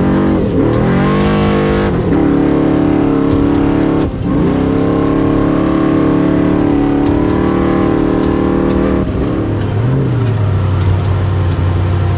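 Off-road race vehicle's engine heard from inside the cockpit, pulling at moderate revs with sharp pitch drops about two and four seconds in as the throttle is lifted or a gear changes. About nine seconds in it falls to a low steady idle as the vehicle slows to a crawl.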